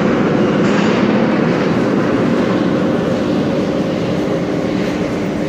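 Ezh3 (Em-508T) Moscow metro train pulling away into the tunnel. Its running noise and a steady hum in the station slowly fade.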